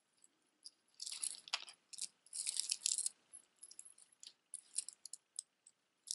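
Dark metal chain necklace with beads and an old key charm jingling and clicking as hands untangle and arrange it. The clinks come in irregular bunches, loudest about a second in and again from two to three seconds in.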